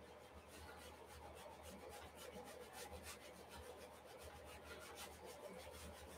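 Faint, quick repeated rubbing strokes of a hand working acrylic paint on a stretched canvas.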